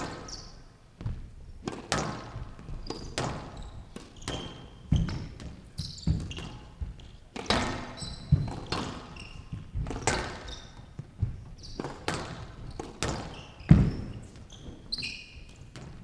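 Squash rally: sharp hits of the ball on racket and walls about once a second, the loudest near the end, with short high squeaks of court shoes between them.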